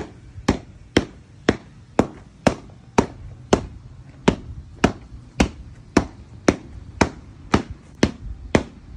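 Sharp, evenly spaced knocks, about two a second, keeping a steady beat.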